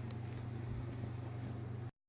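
Room tone with a steady low hum and a few faint clicks, cutting off abruptly near the end as the recording stops.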